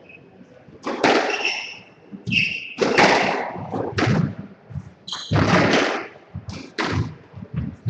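Squash rally: the ball struck by rackets and smacking off the walls, a sharp hit about once a second, with short high squeaks of court shoes on the wooden floor.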